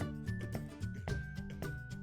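Background music with a steady beat, held bass notes and a high melody that steps downward.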